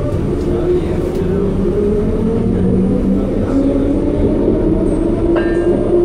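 Detroit People Mover car, a linear-induction-motor train, running along its elevated track, heard from inside the car. A steady rumble carries a droning hum that shifts in pitch, with a brief higher tone about five seconds in.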